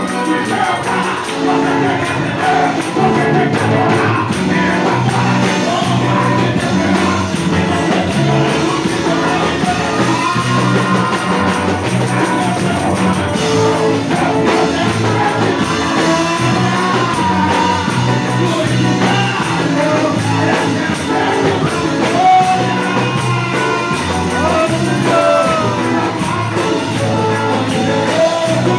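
Live gospel worship song: a man sings through a microphone and PA over a loud, steady band accompaniment in a church hall.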